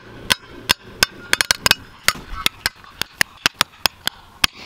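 A small hatchet chopping into sod and dirt in quick, irregular sharp strikes, about four a second, cutting out a trap bed around a plastic trap-bed cutter.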